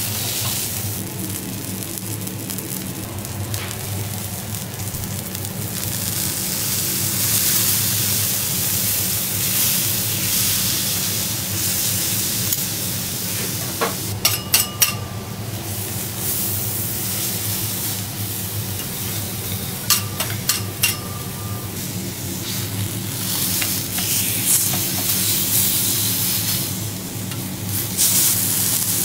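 Beef chateaubriand sizzling steadily as it sears on a steel teppanyaki griddle. Metal spatulas clink and ring against the griddle in two short clusters, about halfway through and again some six seconds later, over a low steady hum.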